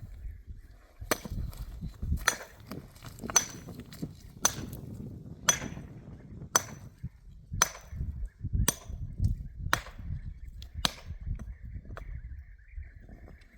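Evenly paced blows from a hand tool, about one a second, eleven in all, each a sharp strike with a brief metallic ring.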